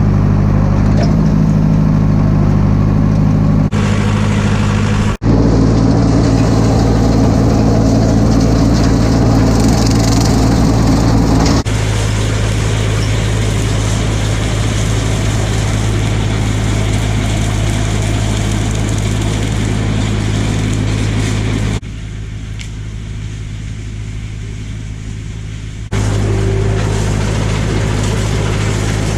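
Tractor engine running at a steady speed, heard across several abrupt cuts, with a quieter stretch late on.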